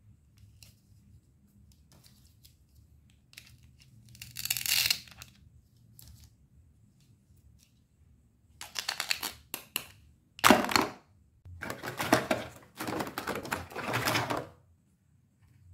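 Hollow plastic toy play-food pieces clattering and rattling against each other in a cardboard box as hands rummage through them. A few light clicks at first, one burst about four seconds in, then several longer bursts of clatter, the loudest about ten seconds in.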